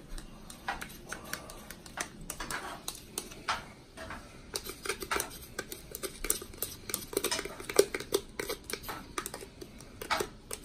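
A spoon scraping and tapping the inside of a small plastic cup of sambal oelek to get the last of the chili paste out: many quick, irregular scrapes and clicks.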